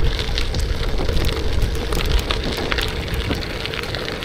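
Wind rumbling and hissing on the DJI Osmo Action 4's built-in microphone during a bike ride, with no external microphone fitted, and a scatter of small crackles and ticks through it.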